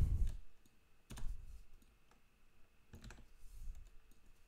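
Computer keyboard keystrokes and mouse clicks during code editing: a few separate taps with pauses between them, over a faint steady hum.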